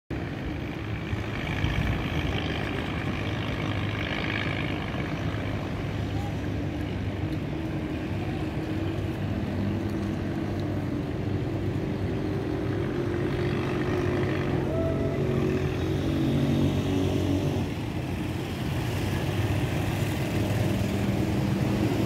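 A motor engine running steadily with a low drone.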